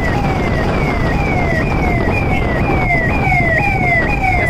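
Siren wailing in a fast repeating pattern: a falling sweep about every 0.6 seconds, over a steady low rumble.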